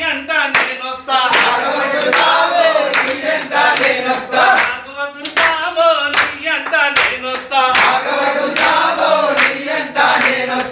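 A group of men singing a devotional song together and clapping in time, about two claps a second.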